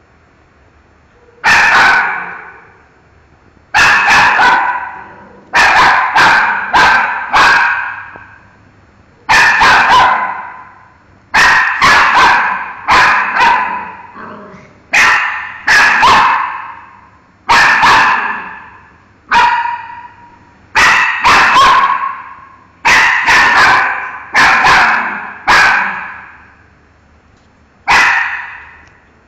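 Miniature schnauzer barking at a mango: about two dozen sharp barks, some single and some in quick runs of two to four, with short pauses between. Each bark echoes off the hard tiled room.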